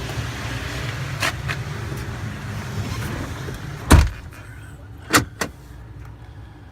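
The Ford F-550's gas V10 idling with a steady low hum. About four seconds in, a truck door slams shut, and after that the engine sounds quieter and muffled, as from inside the cab. Two sharp clicks follow about a second later.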